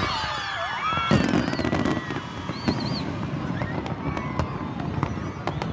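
Fireworks going off: a heavy bang about a second in, then a scattered run of sharper bangs and crackles.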